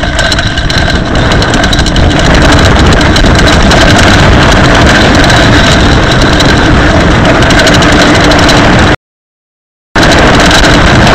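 Mountain bike ridden down a rough forest trail: loud, steady rumble and rattle of tyres and frame, with grit grinding in the disc brakes, the grit that wore through the rear brake pads. The audio cuts out for about a second near the end.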